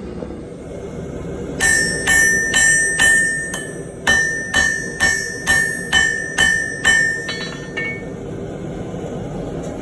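Hammer blows ringing on steel on an anvil: about a dozen strikes at roughly two a second, the last couple lighter, then stopping, over a steady low rumble.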